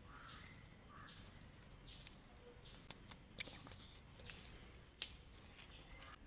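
Insect trilling in a steady, high, rapidly pulsing note that breaks off briefly about five seconds in. A few sharp clicks, the loudest about five seconds in.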